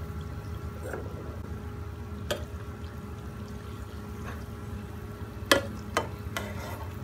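Buns shallow-frying in hot oil in a pan, a steady sizzle, with a few sharp clicks of a slotted metal spatula against the pan as the buns are turned. The loudest click comes about five and a half seconds in.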